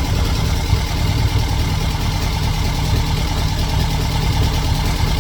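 The Super Beetle's 2110cc air-cooled flat-four engine idling steadily with an even low rumble.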